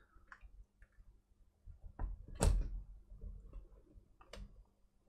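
Handling noise from working on an open laptop: scattered light clicks and knocks from the plastic chassis and its cables. The loudest knock comes about halfway through, and a sharp click follows near the end.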